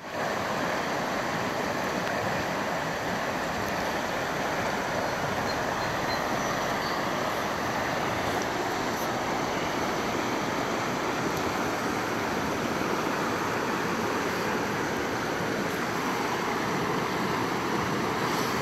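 Steady rushing of a shallow river riffle, water running fast over rocks.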